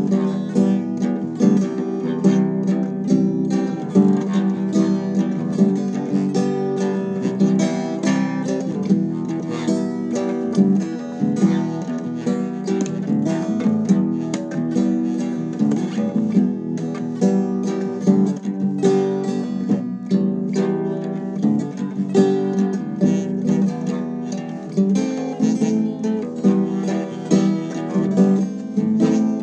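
Acoustic guitar strummed, a continuous run of chords with no singing.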